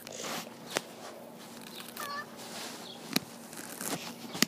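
Hands working in grass, with light rustling and a few sharp clicks, and one short high squeak about two seconds in.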